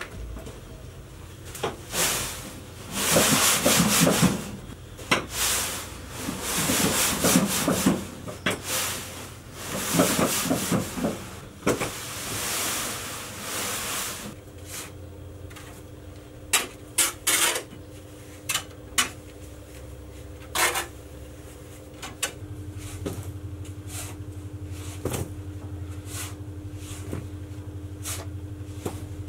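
A shovel scraping and scooping through damp sand in repeated strokes, with a few sharp knocks of the blade later on. A steady low hum runs under the second half.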